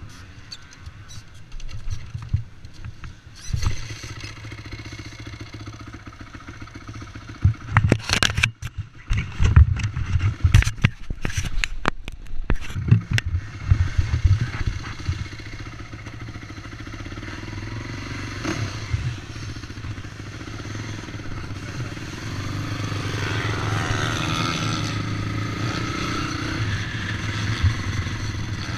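Sport quad's engine running as it rides over a sandy dirt track, with a burst of sharp knocks and bumps in the middle. Later the engine gets louder and steadier, its pitch rising and falling with the throttle.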